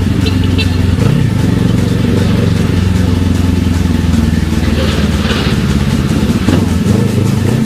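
Kawasaki ER-6n's parallel-twin engine running steadily as the motorcycle is ridden at an even pace.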